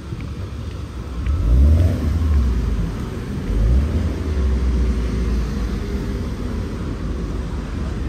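Traffic rumbling on a busy city street, swelling louder twice, about a second and a half in and again about three and a half seconds in, as vehicles pull away.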